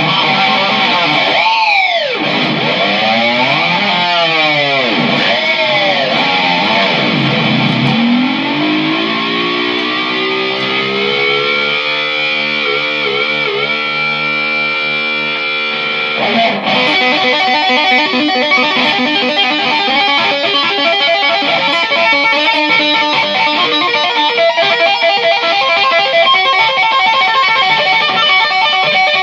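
Loud instrumental music through heavy effects. In the first half the pitch swoops down and back up in deep dives, then settles into held notes. Past the middle it switches suddenly to fast repeated notes.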